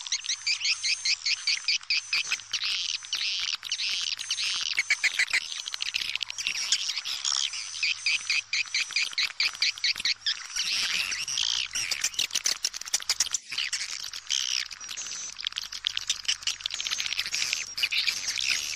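Swiftlet calling sound: a dense, continuous chorus of rapid high chirps and twitters from many swiftlets, many notes a second. It is the kind of lure call played from swiftlet houses to draw the birds in to roost and nest.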